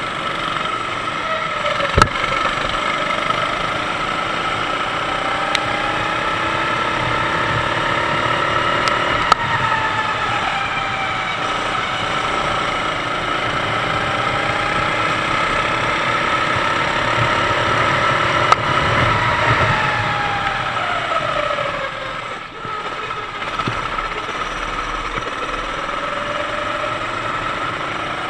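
Sodi kart's 390cc four-stroke engine racing, heard from on board: its note rises along the straights and falls into the corners over and over. A few sharp knocks come through, and about 22 seconds in the engine note drops briefly before it picks up again.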